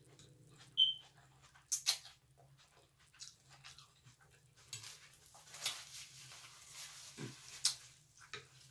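Close-up mouth sounds of eating pho rice noodles: the noodles slurped in, with a short high squeak about a second in, then wet clicks of chewing and lip smacks. A paper napkin crinkles for a couple of seconds after the middle.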